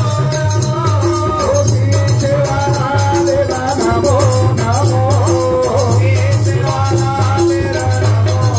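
Devotional aarti bhajan: a harmonium carries a wavering melody over a steady low drone with a singer's voice, while small brass hand cymbals (manjira) and hand claps keep a fast, even beat.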